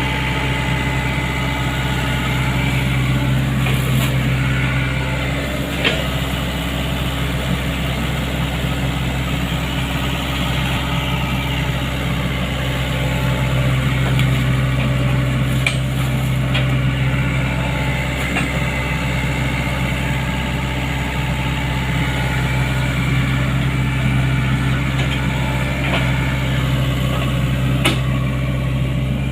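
Sany excavator's diesel engine running steadily, with a few sharp knocks now and then.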